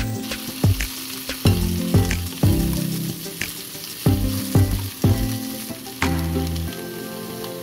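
Vegetables sizzling in oil in a frying pan as they are stir-fried, with a steady hiss and repeated sharp knocks, about two a second, from the utensil turning them in the pan.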